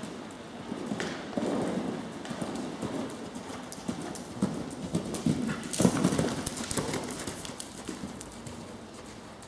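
A horse cantering on the sand footing of an indoor riding arena, its hoofbeats an irregular run of dull thuds, with one heavier thud about six seconds in.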